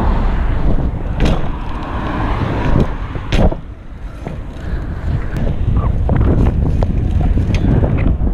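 BMX bike riding on asphalt: tyres rolling and wind rushing over the action camera's microphone in a steady low rumble, with a few sharp clicks and knocks from the bike.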